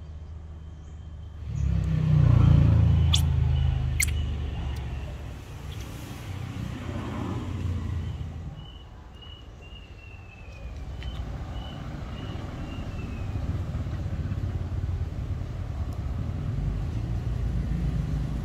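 Road traffic: a motor vehicle passes, its rumble swelling loudly about two seconds in and fading, then more traffic rumble that builds again near the end.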